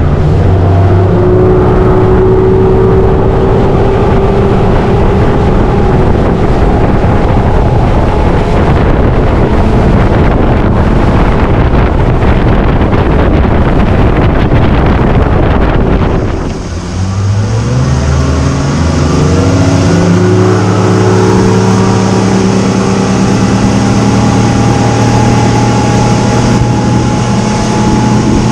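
Motorboat engine running under way, with heavy wind and water noise. About 16 seconds in the engine drops off briefly, then climbs in pitch over a few seconds and holds steady at a higher speed.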